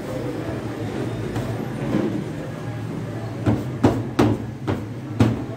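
About five sharp knocks in quick succession in the second half as pieces of roti dough are slapped and pressed down on the floured worktable, over a steady low hum.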